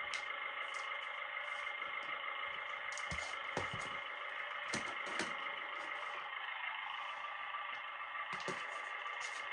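Steady electric whine of small RC model motors and gearing, of the kind that drives 1/14-scale hydraulic construction models, with a few sharp clicks and clacks in the middle and near the end.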